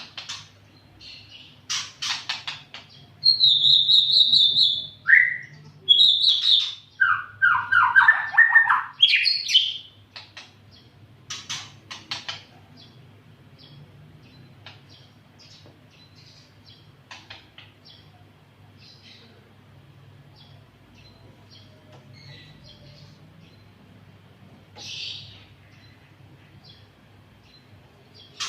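White-rumped shama (murai batu) singing: loud whistled phrases that slide up and down in pitch for the first ten seconds or so, then scattered short chirps and clicks.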